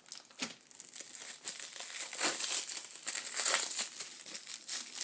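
Plastic packaging crinkling and rustling in irregular crackles as a small keyboard part is handled and unwrapped.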